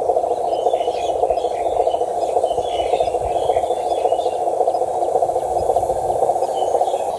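Frog chorus: a steady, dense trilling that does not change throughout.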